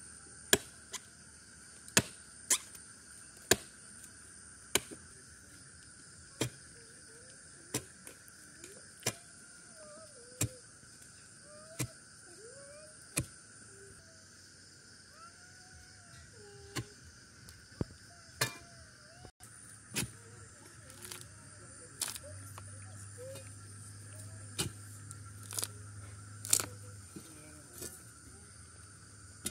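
A blade and an iron bar striking hard packed earth in sharp, separate knocks, about one a second with a short pause partway through. A steady high insect chirring continues behind.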